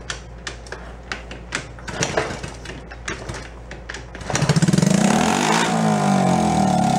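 Small single-cylinder four-stroke engine of an old Honda 50 mini bike being kick-started: a few seconds of kicks and clatter, then it catches about four seconds in and runs, revving up and down. It fires on a little fuel poured down the intake once the ignition points have been closed up, which the owner takes as proof that the points were the fault.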